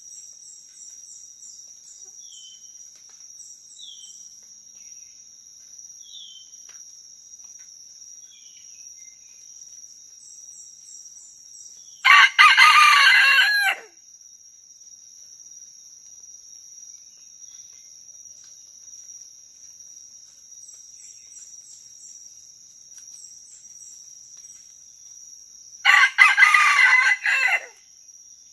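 Red junglefowl rooster crowing twice, about 14 seconds apart, each crow short, under two seconds, and cut off abruptly. Between them a steady high-pitched drone of crickets or other insects carries on.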